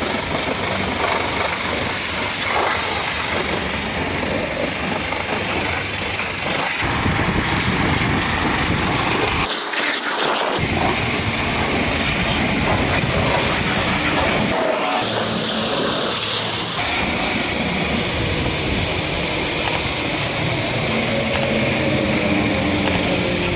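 Pressure washer spraying water against a truck: a loud, steady hiss of the jet, briefly thinning out about ten seconds in and again about fifteen seconds in.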